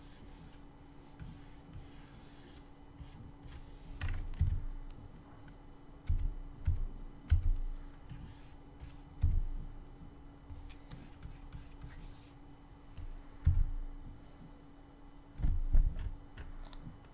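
Computer mouse being clicked and dragged on a desk: faint clicks and a scattering of soft low thumps, over a steady low electrical hum.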